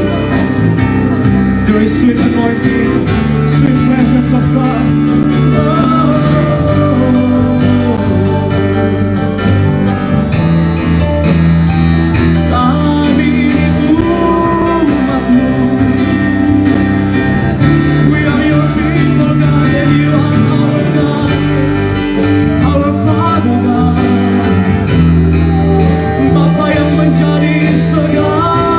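Live congregational worship song: a small praise team singing into microphones over steady instrumental accompaniment, with the music continuing without a break.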